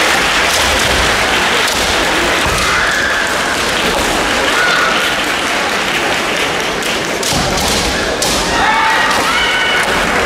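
Kendo competition hall: sharp knocks and thuds of bamboo shinai and stamping feet on the wooden floor, with high kiai shouts about three seconds in and again near the end, over a steady loud din of the hall.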